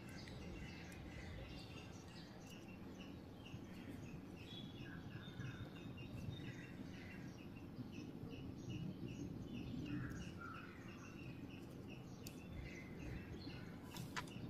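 Faint background of a bird chirping over and over, about three short high chirps a second, over a low steady room rumble; a single sharp click near the end.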